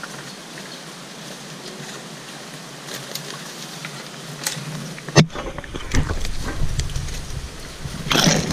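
Footsteps and scattered snaps and crackles of brush while walking through thick bush. About five seconds in there is a sharp knock, then a low rumble of handling noise, and a louder crackling burst of brush near the end.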